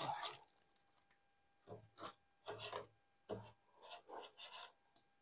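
A loud rustle that stops about half a second in, then about six short, quiet rasping rubs spread over the next few seconds.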